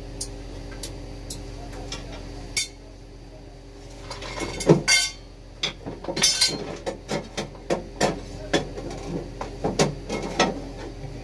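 Irregular metallic clicks, taps and clinks of a screwdriver and small wiring hardware being handled at an inverter's terminals, a few scattered at first and coming thick and fast from about four seconds in, over a low steady hum.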